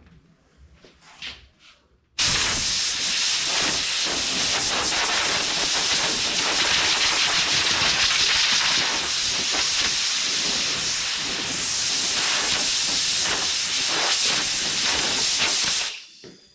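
Compressed air from the air compressor's line hissing out loudly and steadily. It starts about two seconds in and cuts off sharply near the end.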